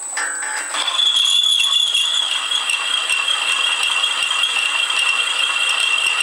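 A 20 mm twist drill in a homemade milling machine cutting into a steel plate at about 140 rpm, chattering and rattling, with a high steady squeal starting about a second in. It is being pressed hard at this low speed, so the spindle is slowing under the load.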